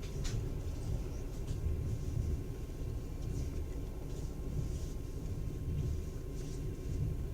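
Passenger train running on the rails, heard from inside the carriage: a steady low rumble with a few brief high-pitched squeaks scattered through it.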